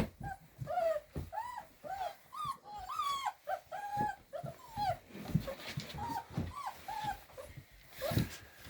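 Several young puppies whimpering and whining in quick, high-pitched cries, a few a second, with soft bumps and knocks from their movement in between.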